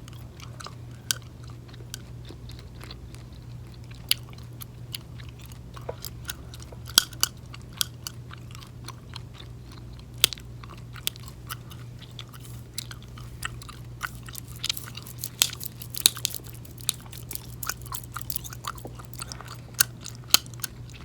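Close-miked gum chewing: irregular wet mouth clicks and smacks, busier in the second half, over a steady low hum.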